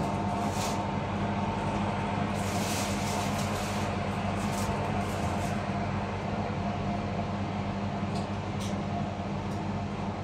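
Steady low motor hum, with a few faint clicks along the way.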